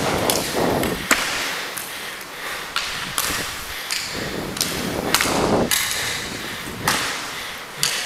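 Inline roller hockey play: skate wheels rolling and scraping on the rink floor, broken by several sharp clacks of sticks and puck.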